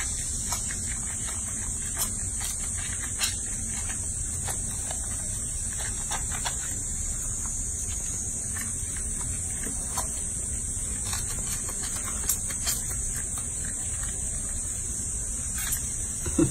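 Hands lathering and splashing a baby monkey in a water-filled sink: faint scattered splashes and clicks over a steady hiss and low rumble.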